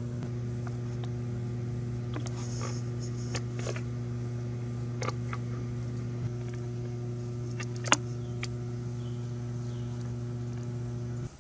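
Scattered light clicks and taps from a cable and its plastic connector being handled and worked through a rubber grommet in an outboard motor's cowling, one sharper click about eight seconds in. A steady low hum runs underneath and cuts off abruptly near the end.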